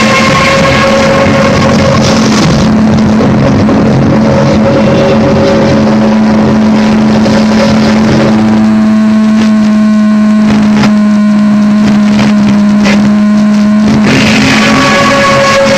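Loud, unbroken wall of distorted electric guitar noise. High, slightly wavering feedback tones ring at the start and come back near the end. A low held drone runs underneath through the middle, with crackling clicks in its second half.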